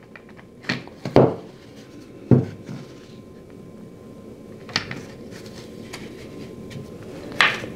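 Spring clamp being handled and fitted onto a wooden strip: several separate sharp clicks and knocks as its jaws and pads tap the wood, the loudest about two seconds in.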